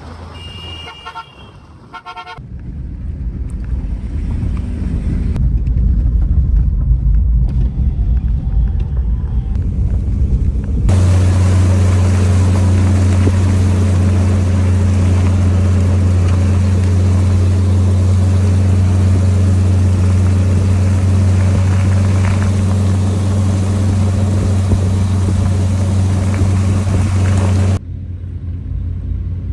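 Vehicle driving: a steady low engine drone with road and wind noise, broken by sudden cuts between segments.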